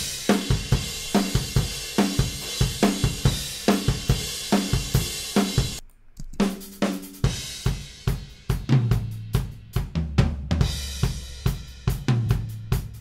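Raw, unprocessed multitrack recording of a rock drum kit played back soloed: a driving pop-punk beat of kick, snare, hi-hat and cymbals. Playback cuts out for a moment about six seconds in and starts again, with low tom notes ringing out later on.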